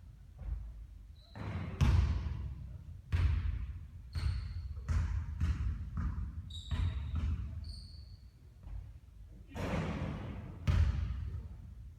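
Basketball bouncing on a hard court, a thud roughly every second at an uneven pace, with short high squeaks of sneakers on the floor between some bounces.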